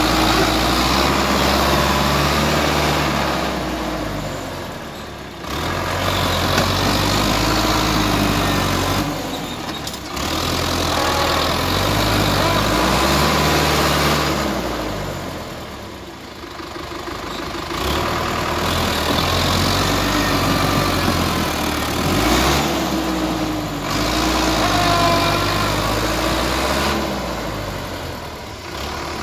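Sonalika All Rounder 55 tractor's diesel engine running under load in mud, its speed rising and falling several times as it works.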